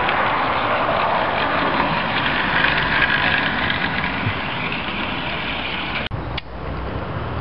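00 gauge model train, coaches and a Bulleid pacific locomotive, running past close by: a steady rushing whirr of its motor and wheels on the track. It cuts off abruptly about six seconds in, leaving a quieter low hum.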